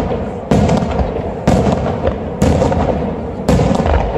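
Aerial firework shells bursting in a steady series, a loud bang about once a second, four in all, each echoing away before the next.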